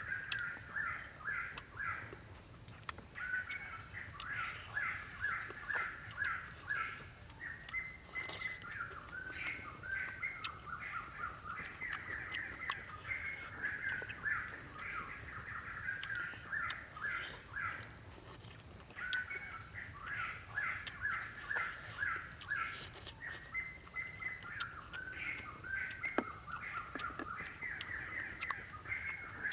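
Forest ambience: a steady high-pitched insect drone, with runs of rapidly repeated chirping animal calls that pause now and then, and a few faint clicks.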